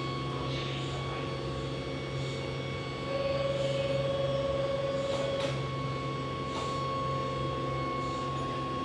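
Electric train standing at an underground station platform with its doors open: steady hum with thin steady tones. A louder single held tone sounds about three seconds in for a couple of seconds, with a few faint clicks.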